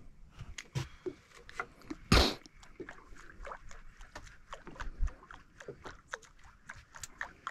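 Irregular clicks and knocks of fishing tackle being worked while jigging from a small boat. There is one loud rushing burst about two seconds in.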